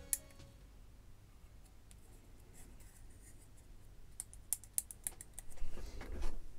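Hands handling a soldered circuit board: faint light clicks and scratching, growing busier in the last couple of seconds. The last note of background music dies away at the very start.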